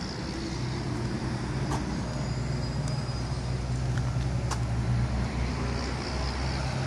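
Road vehicle engine running with a steady low hum that grows a little louder toward the middle, with a few faint clicks.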